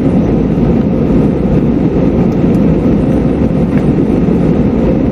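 Steady cabin noise inside an Airbus A320-214 in flight: the hum of its CFM56 engines and the rush of airflow heard through the fuselage beside the window, heavy in the low end and unchanging.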